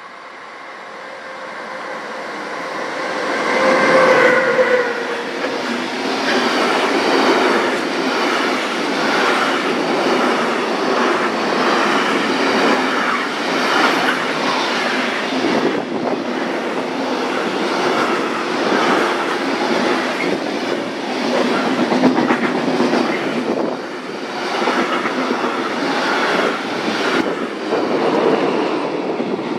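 Electric freight train passing close by: the class 193 Vectron locomotive comes closer and passes about four seconds in, with a brief tone as it goes by. Then a long string of intermodal freight wagons rolls past with a steady rumble and repeated wheel clatter over rail joints, and near the end the hauled class 139 electric locomotive at the tail rolls by.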